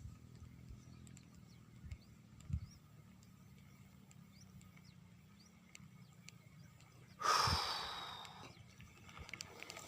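Quiet outdoor ambience with faint, short high chirps and a soft low thump. About seven seconds in, a sudden rush of noise that fades over a second or so.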